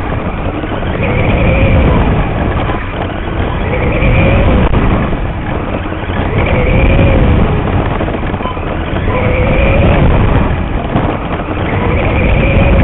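Motor and drivetrain of a radio-controlled mini late model race car, heard from a camera mounted on the car. It whines up and falls away in a regular cycle about every two and a half to three seconds as the car laps a small dirt oval. Heavy rumble and noise run underneath.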